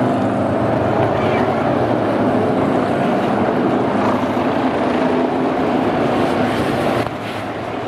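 V8 engines of NASCAR Whelen Euro Series stock cars running at racing speed as the cars pass through a corner, a steady engine sound that drops somewhat in level about seven seconds in.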